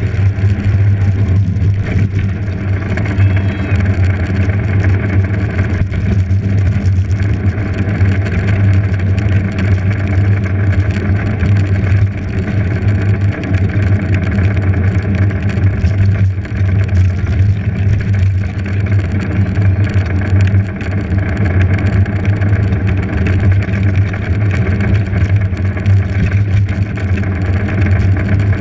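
Steady low drone of a small race vehicle heard from on board as it drives the course, a constant hum with little change in pitch and road and rattle noise over it.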